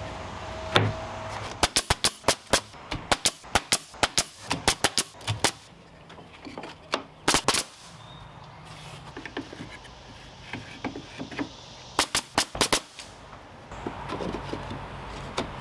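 Sharp bangs of nails being driven into wooden shed trim and siding: a dense rapid run in the first half, then a few quick clusters of strikes.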